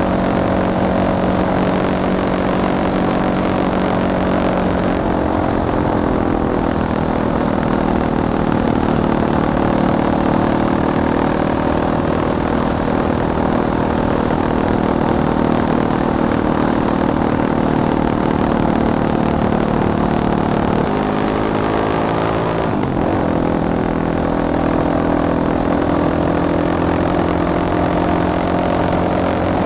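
Caballero 500 Flat Track motorcycle's single-cylinder engine running at fairly steady revs. Its pitch drops about five seconds in, then climbs again around twenty-one seconds, with a brief dip shortly after.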